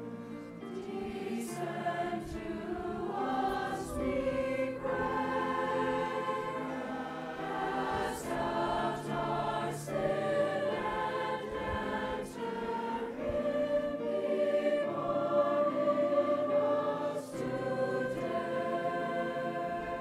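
A large mixed choir of teenage voices singing sustained chords in several parts, the harmony shifting every second or so, with sharp 's' consonants now and then. The singing swells to its loudest about three-quarters of the way through.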